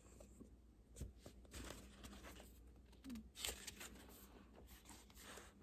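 Near silence with a few faint rustles of a picture book's paper pages being handled and turned.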